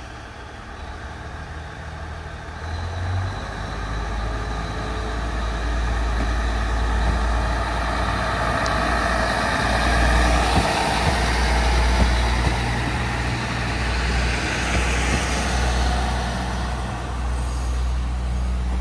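Diesel railcar pulling out of the station: its engine throttles up a few seconds in with a deep rumble and grows louder as the train gets moving.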